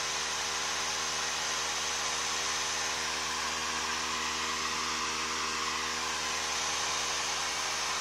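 Sapphire AMD Radeon HD 6990 graphics card's fan running: a steady, loud airy rush with several faint steady tones beneath it.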